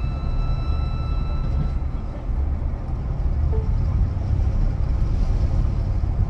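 Steady road noise inside a moving pickup truck's cab: a low rumble of engine and tyres, with a faint high whine that fades out about two seconds in.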